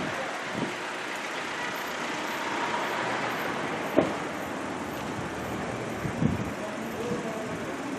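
A car idling and street traffic as a steady hum, with a few short knocks.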